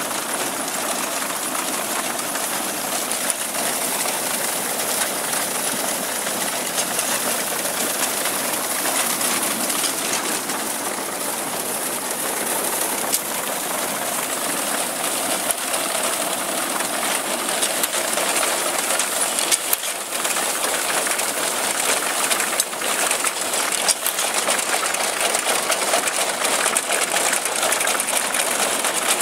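Tractor-drawn reaper-binder cutting and binding a cereal crop: a steady clatter of its gears, reel and knife with scattered sharp clicks, over a tractor engine running.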